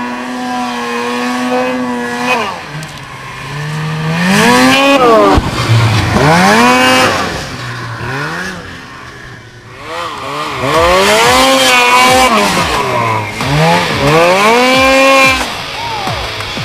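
Snowmobile engines revving hard in deep powder, the pitch climbing and falling again and again, loudest in two long swells.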